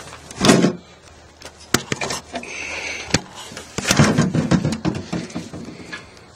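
Handling noise while moving about a small boat: a few sharp knocks and clicks, a short scrape, and rustling.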